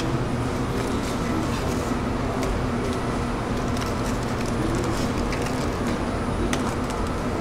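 Steady hum and hiss of shop machinery, with a few light clicks of metal tongs setting pieces of fried dough down on a stainless steel tray.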